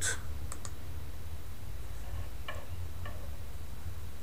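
Steady low hum with a few faint clicks and light taps from handling the handheld gas detector.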